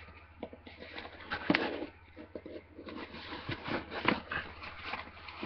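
Cardboard mail package being torn open by hand: irregular ripping and rustling, with a couple of sharp snaps about a second and a half in and near four seconds.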